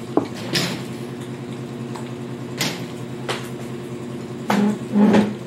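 Kitchen and table clatter: a few sharp clicks and knocks of dishes and utensils over a steady hum, with a louder, longer clatter near the end.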